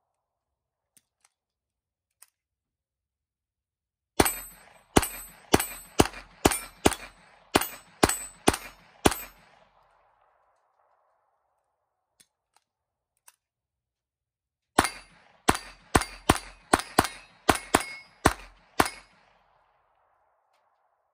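Smith & Wesson M&P22 Compact .22 LR pistol firing Remington Thunderbolt rounds in two quick strings of about ten shots each, a few seconds in and again about two-thirds through, with steel targets ringing from hits.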